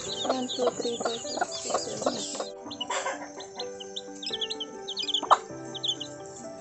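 A brood of young Philippine native chicks peeping, many short high cheeps crowded together for the first couple of seconds, then scattered cheeps. A single short knock a little past five seconds in is the loudest moment.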